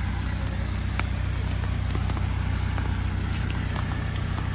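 Engine idling steadily, a low even drone, with scattered light ticks over it.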